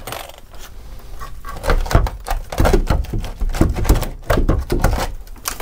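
Irregular knocks and cracks of a rotten wooden gun support in an old wooden boat being pried and pulled away by hand, the decayed timber breaking off in pieces.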